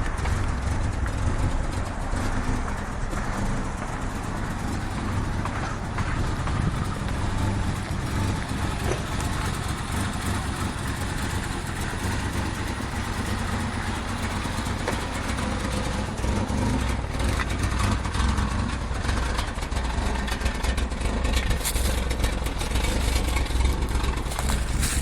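1994 Mazda 323's engine idling steadily, a low, even hum. The owner calls the idle rough, though on this run it holds stable. A few sharper noises come near the end.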